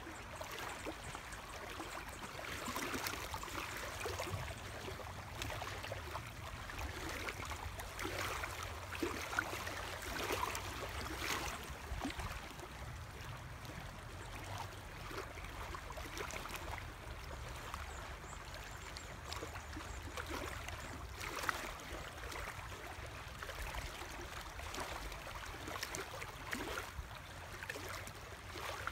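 Small lake waves lapping against a log and rocks in shallow water: a steady run of little gurgles and splashes, with a low steady rumble underneath.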